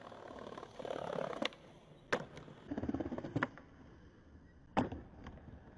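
Skateboard wheels rolling on paving, broken by sharp pops and clacks of the board as the tail snaps and the board lands, four cracks in all, the loudest near the end.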